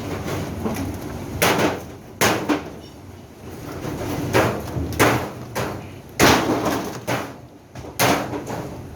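Irregular hard knocks and bangs, about seven strikes a second or so apart, some with a short ring after them, from parts of a top-load washing machine being struck while it is taken apart.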